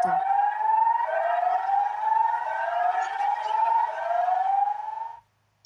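Recorded emergency warning siren sounding a rising tone over and over, about one and a half sweeps a second. It cuts off suddenly near the end.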